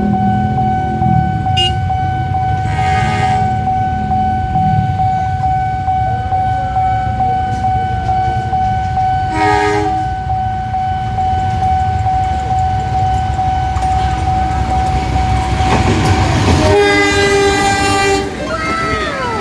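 Sawunggalih passenger train running through a level crossing, wheels clattering over the rails, with short horn blasts about three seconds and ten seconds in and a longer, louder horn blast near the end. A steady high tone sounds underneath.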